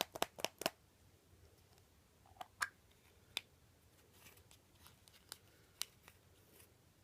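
Quiet handling of small plastic toy packaging being opened: a quick run of sharp clicks at the start, then scattered single clicks and faint rustling.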